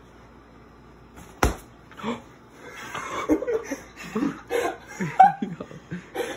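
Two slaps of a padded boxing glove, a sharp one about a second and a half in and a softer one just after, followed by a few seconds of laughter.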